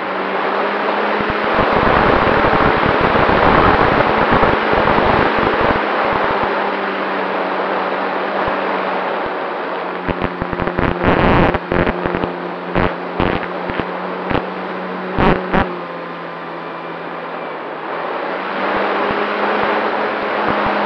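Motor of a radio-controlled scale Cessna 188 model plane in flight, heard from a camera mounted on the plane: a steady drone that holds one pitch under rushing wind. Sharp wind buffets hit the microphone several times about halfway through.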